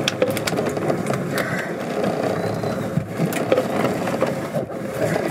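A boat's engine running steadily under a rushing noise, with fabric rustling and light knocks close by, from a changing robe brushing past and someone handling things on deck.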